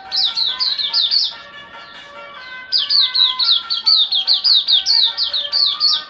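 A white-eye (puteh) singing fast runs of short, high, downward-sliding notes, about six a second, in two bursts with a pause of about a second and a half between them, over background music.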